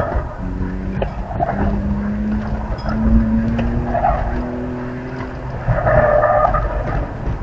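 BMW E46 325xi's inline-six engine running under hard driving, its pitch stepping up and dipping with the throttle, while the tires squeal in short bursts through the corners. The squeals come near the start, about four seconds in, and loudest about six seconds in.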